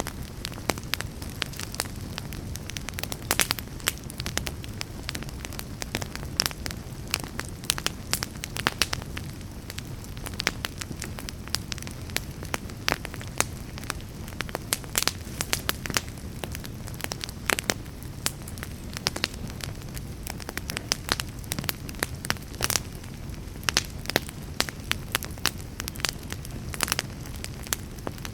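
Log fire burning in a fireplace: a steady low rumble of flames with frequent, irregular sharp crackles and pops from the burning wood.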